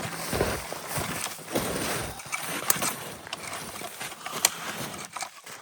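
Footsteps crunching and brushing through snowy bush, with a couple of sharp snaps like twigs breaking.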